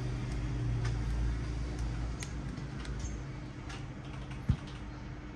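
Scattered light clicks and taps of small tools working on a phone, over a steady low hum. One dull thump about four and a half seconds in is the loudest sound.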